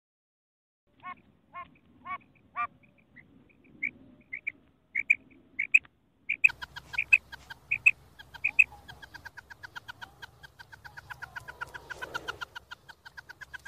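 Female common quail calling. After a second of silence come four spaced calls, then a run of sharper calls, about two a second, that grow louder. From about halfway a fast, even series of short clipped calls, several a second, runs over low background noise.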